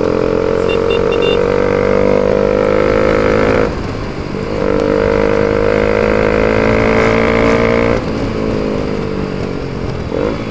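Bajaj Pulsar RS200's single-cylinder engine through an Akrapovic full-system exhaust with no dB killer, accelerating on the road. The pitch climbs slowly, dips briefly about four seconds in as it shifts up, climbs again, and falls away near eight seconds.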